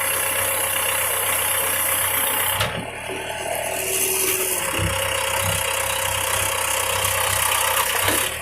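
A 5-ton backhoe's engine running at idle. Its sound changes and dips slightly about two and a half seconds in, and a few low knocks follow.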